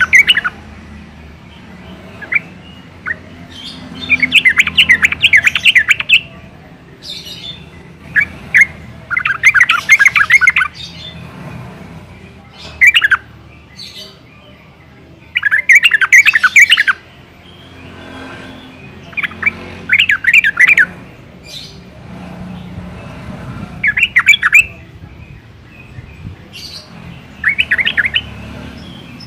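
Yellow-vented bulbul (trucukan) singing: about nine phrases of quick, chattering notes, each one to two seconds long, with pauses of a few seconds between them.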